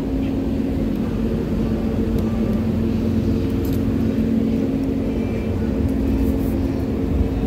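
Steady low mechanical hum and rumble carrying two faint steady tones, with a few faint light clicks.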